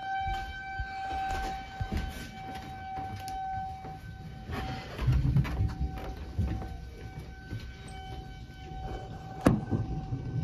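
Tornado warning siren sounding one steady tone whose level rises and falls. Low rumbling noise joins about halfway through, and a sharp knock comes near the end.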